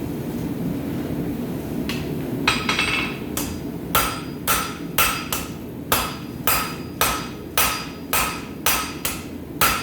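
A blacksmith's hammer forging hot steel on an anvil. The blows start about two and a half seconds in and then come steadily at about two a second, each with a ringing note. A steady low rushing noise lies underneath.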